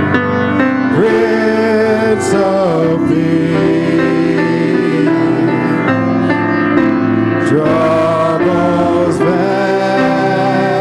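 Church worship team singing a slow worship song into microphones, with long held notes, over keyboard and guitar accompaniment.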